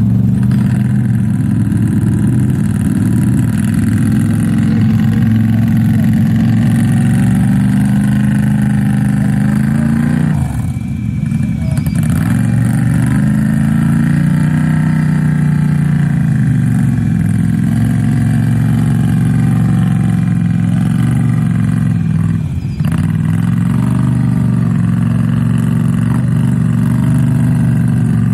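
ATV engine revving hard as the quad churns through deep mud, the pitch rising and falling with the throttle. It eases off briefly twice, about ten seconds in and again a little past twenty seconds.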